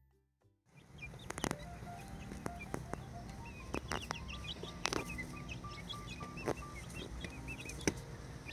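A music track ends just under a second in. Then young chickens peep and chirp busily in a wire pet crate, with scattered knocks and scratches as they move about on the straw.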